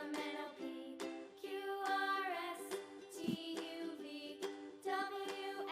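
Quiet background music for children, a melody of sustained pitched notes.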